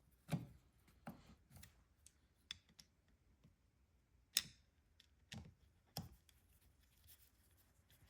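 Sparse light clicks and taps of a screwdriver on small screws and metal carburetor parts as the corner screws of a Mikuni carburetor are driven snug; the sharpest tap comes a little past the middle.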